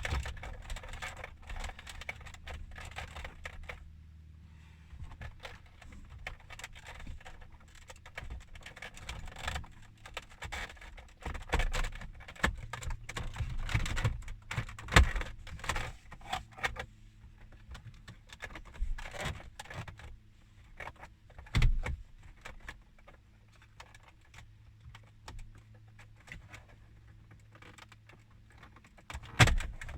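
Scattered clicks, taps and light rattles of plastic dashboard trim being handled and worked into place, over a faint steady low hum.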